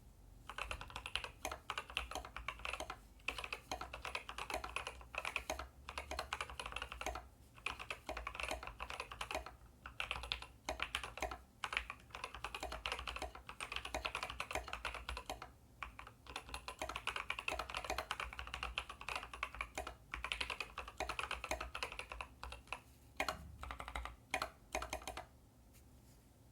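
Typing on an ID80 mechanical keyboard with lubed and filmed Kiwi switches and PBT keycaps, in an acrylic-bottomed case with a neoprene sheet between PCB and plate: fast runs of key presses broken by short pauses, stopping about a second before the end.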